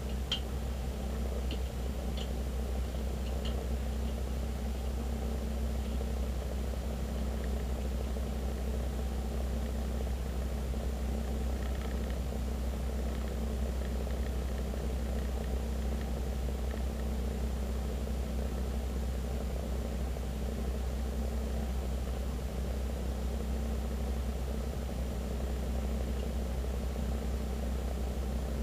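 Steady low rumble of a car's engine and road noise inside the moving car, as picked up by a dashcam's built-in microphone, with a faint high steady whine and a few light ticks in the first few seconds.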